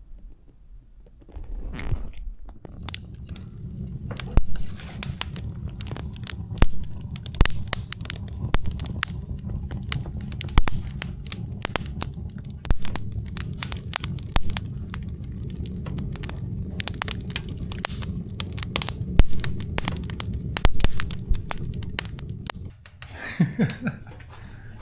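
Wood fire crackling, with many sharp pops and snaps over a steady low rumble of burning; the rumble stops suddenly near the end.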